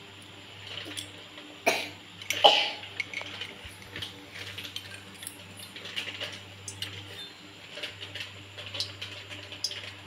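A metal spoon knocks sharply against a metal kadhai twice, about two seconds in. Light, scattered crackling follows as a test drop of gram-flour batter fries in the heating oil, which shows the oil is hot enough for frying.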